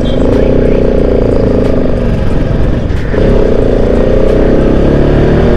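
Motorcycle engine pulling uphill in a low gear, heard from the rider's seat. The engine note breaks off briefly about three seconds in, then picks up again.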